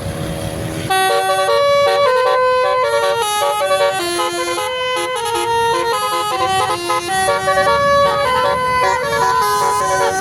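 Bus basuri horn, a multi-tone 'telolet' horn, playing a melody of held notes that change pitch in steps, starting about a second in. The bus engine is heard running before the horn starts.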